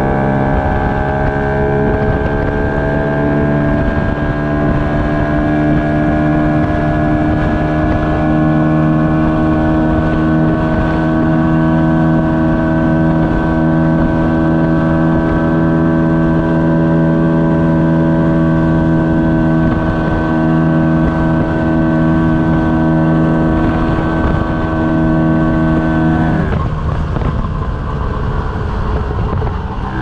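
1952 DKW RT 125/2's 125 cc single-cylinder two-stroke engine running on the move, climbing slightly in pitch over the first few seconds and then holding a steady note. About 26 seconds in, the note breaks off briefly, and the engine picks up again near the end.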